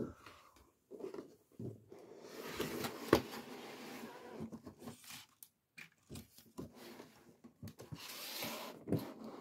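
Cardboard LEGO advent calendar boxes being handled and slid across a table: scraping and rustling with scattered knocks. The loudest knock is about three seconds in, and a second stretch of rustling comes near the end.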